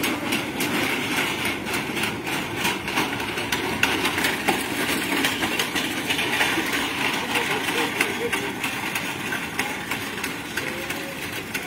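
A vehicle engine idling steadily, with voices in the background.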